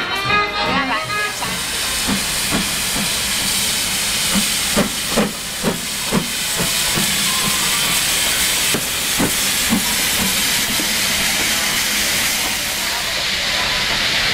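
Steam locomotive letting off steam: a loud, steady hiss, with a series of short knocks in the middle stretch.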